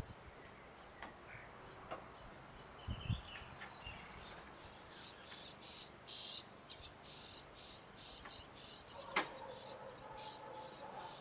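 Songbird nestlings inside a wooden nest box begging with a run of rapid, raspy, high-pitched calls from about four seconds in. A single knock about nine seconds in.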